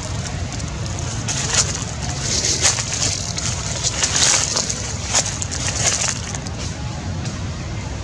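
Rustling and crackling in irregular bursts over a steady low rumble, with a few sharp clicks between about one and six seconds in.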